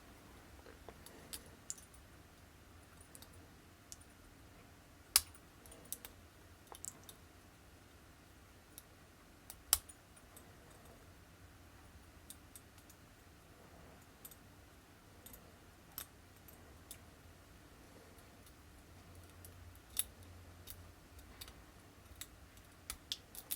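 Small, irregular metallic clicks from a lock pick and tension wrench working the pins inside an Am-Tech pin tumbler padlock, with a few sharper clicks about five, ten and twenty seconds in.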